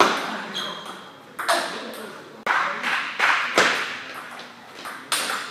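Table tennis rally: the ball is struck back and forth by the bats and bounces on the table, giving a string of sharp clicks that echo in a large hall.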